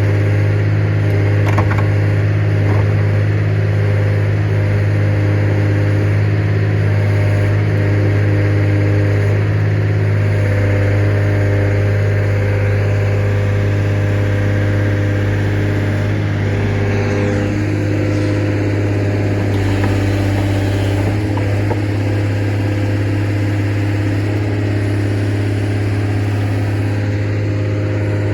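Case 125B excavator's diesel engine running steadily while the machine digs.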